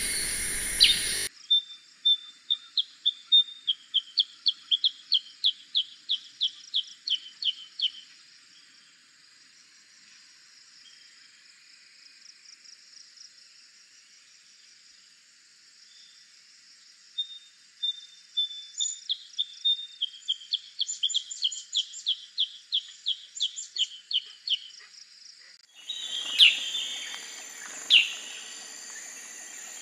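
Black-headed bulbul calls: two runs of rapid repeated chirps, about three a second, each lasting several seconds with a quiet hissy pause between. Near the end the recording cuts to louder single calls about every second and a half over more background noise.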